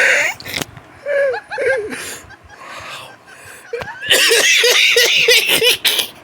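A person's wheezing laugh. It opens with a loud hoarse burst, then a few squeaky breaths, then a fast run of high-pitched wheezing squeaks, about four to five a second, with a cough-like rasp.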